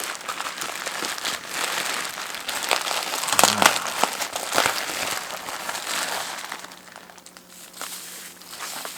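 Packaging crinkling and crackling as it is handled, loudest about a third of the way in, then dying down.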